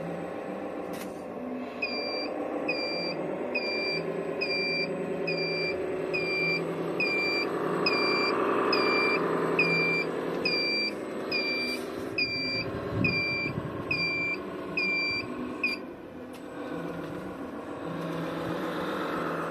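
Sound module of an RC Iveco Trakker 6x4 tipper truck: a simulated diesel engine running, swelling mid-way, with a reversing beeper sounding about once a second while the model backs up. The beeping starts a couple of seconds in and stops a few seconds before the end.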